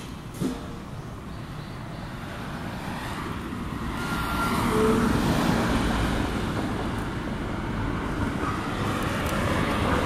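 Road traffic running steadily, growing louder about four seconds in as vehicles pass.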